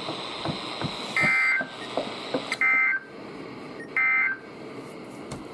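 A weather radio's end-of-message (EOM) SAME data bursts: three short, buzzy digital bursts about 1.4 seconds apart. They signal that the severe thunderstorm warning has ended.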